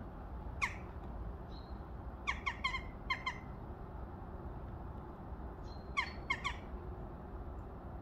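Tame jackdaw giving short, sharp calls: one about half a second in, a quick run of four or five a couple of seconds in, and three more near the end. They sound over a steady low background rumble.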